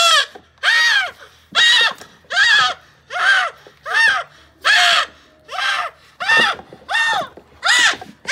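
A Nubian buckling screaming in repeated loud bleats, about one every three-quarters of a second, each call rising and then falling in pitch. It is crying out in pain as a hot disbudding iron burns off its horn bud.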